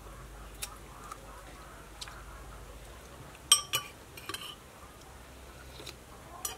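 A metal spoon clinking against a pot while soup is eaten. There are two sharp clinks about three and a half seconds in, and a few lighter taps.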